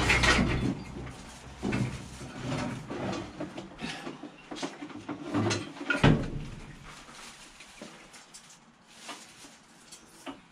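A run of knocks, bumps and rattles, loudest at the start and again about six seconds in, then dying down to a few faint ticks.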